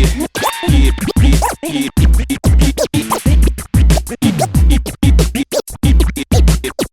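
A DJ scratching a record over a hip-hop beat. The sample is chopped into many quick, sharp cuts, with pitch sweeping up and down under the moving platter, while a bass-heavy kick pulses underneath.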